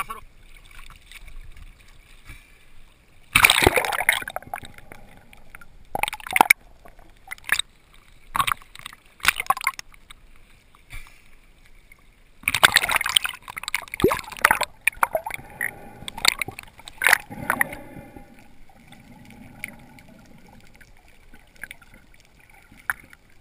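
Sea water splashing and sloshing in irregular loud bursts at the surface. Near the end it gives way to a quieter, low rush of water heard underwater.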